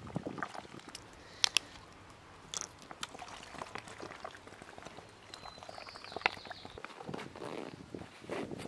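Thin disposable plastic water bottle crackling and crinkling as it is squeezed to pour water into a plastic hydration bladder, with plastic handling clicks throughout. Two sharp clicks about one and a half seconds in are the loudest sounds.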